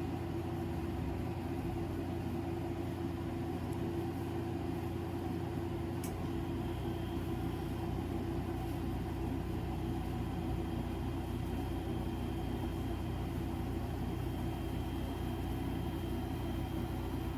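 Air conditioner running with a steady hum.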